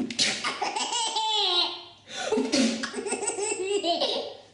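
Baby laughing hard in two long bouts of about two seconds each, with a brief pause between them.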